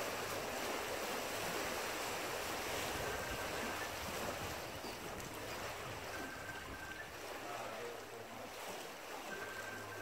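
Choppy lake water splashing steadily against large rocks and a concrete wall.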